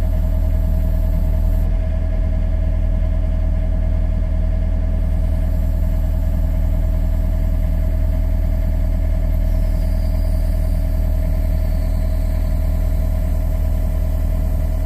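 A John Deere excavator's engine runs steadily, heard from inside the cab, with a steady whine over the low engine hum. The boom is being lowered and swung around.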